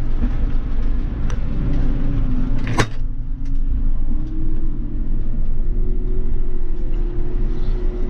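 JCB tractor's diesel engine running at low speed, heard from inside the cab as a steady low rumble. There is a sharp click about three seconds in, and a steady whine joins the rumble from then on.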